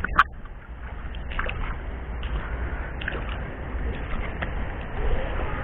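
River water running in a steady wash, with a low rumble of wind on the microphone. A single sharp click comes just after the start.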